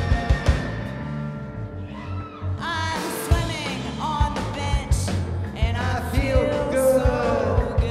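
Live rock band playing with drums and electric guitar; a voice starts singing about three seconds in.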